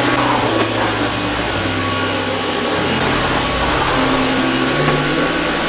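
Cordless stick vacuum, a Dyson V11, running steadily as it is pushed over a wood floor.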